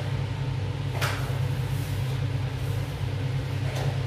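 Steady low mechanical hum, with a short soft rush of noise about a second in and another near the end.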